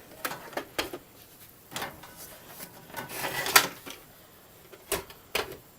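Hands handling the wiring inside a fire alarm control panel: scattered light clicks and knocks, with a brief rustle about three seconds in.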